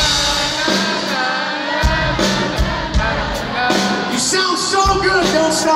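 Live rock band playing with a male lead singer, recorded from the audience at a concert; heavy drum beats come in about two seconds in.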